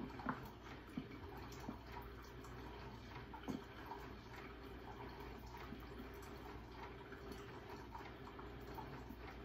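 Faint, scattered taps and scrapes of a spoon in a glass measuring cup as thick barbecue sauce is spooned out of its bottle, over the low steady gurgle and drip of a coffee maker brewing.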